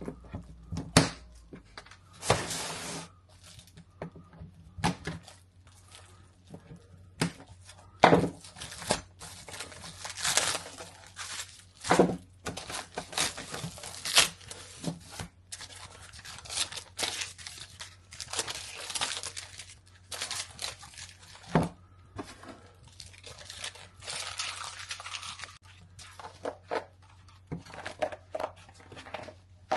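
Packaging being unwrapped by hand: plastic bags and wrapping crinkling and tearing in irregular rustles, with sharp knocks as parts are handled, over a faint steady low hum.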